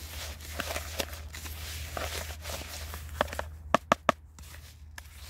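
Damp carp groundbait, soaked with banana dip, being stirred and rubbed by hand: a soft gritty rustle. Then a few sharp knocks, three to four seconds in.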